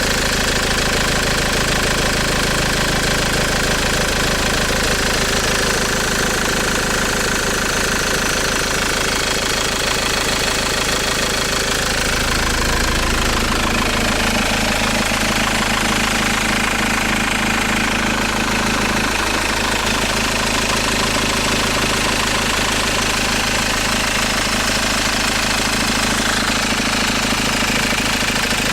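Engine idling steadily, with a fast, even knock running under its note. The low part of the note shifts slightly about thirteen seconds in.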